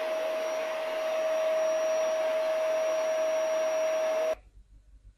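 A household appliance's electric motor running: a steady hum with a rush of air. It stops abruptly about four seconds in.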